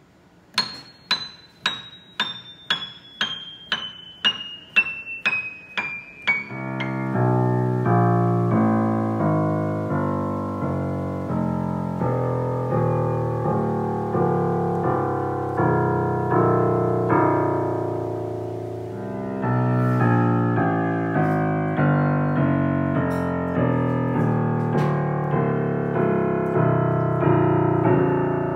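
Yamaha grand piano played one note at a time down the keyboard: first the highest treble notes, about two a second, then on down through the middle and bass with each note ringing into the next. A second descending run begins about two-thirds of the way through.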